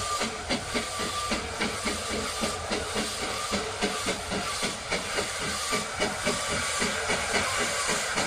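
Steam locomotive working hard under load, chuffing steadily at about three to four exhaust beats a second over a constant hiss of steam.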